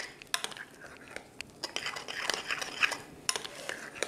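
Metal spoon stirring a thick, sticky banana-and-oat batter in a glass bowl: irregular scraping and clinks of the spoon against the glass.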